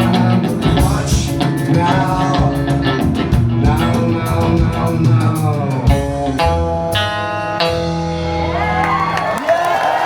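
Live rock band playing the closing bars of a song, drums and electric guitar in a steady beat, then a final chord held about six seconds in. As the chord dies away near the end, the crowd starts cheering and whistling.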